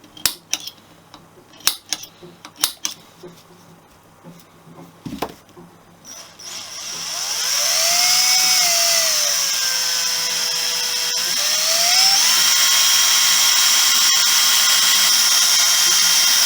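A few sharp clicks and knocks. Then, about six seconds in, an electric drill spins up and drills into a seized steel nut. Its whine sags in pitch as the bit loads up, then rises again and holds steady.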